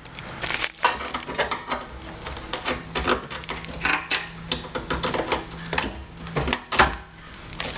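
Irregular clicking and rattling of a plastic clip-on cover being handled and worked onto the fuel tank, with several sharper knocks; the loudest is near the end.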